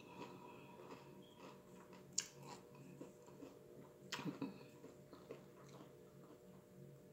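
Faint close-up chewing of crunchy Doritos Flaming Hot Nacho tortilla chips, with a sharp crunch about two seconds in and a short run of crunches about four seconds in.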